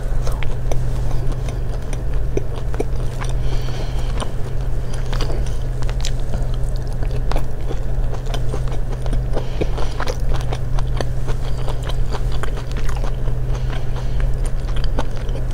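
Close-up chewing of a mouthful of food, with many small irregular mouth clicks and smacks picked up by a clip-on microphone, over a steady low hum.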